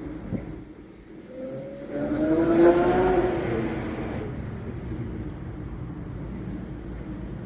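Aston Martin DB7 Vantage's V12 engine, its rear silencers fitted with home-made silencer delete pipes, heard from inside the cabin. The engine drops away briefly, then revs up loudly under acceleration with a rising pitch from about a second and a half in. After that it settles back to a steady cruise.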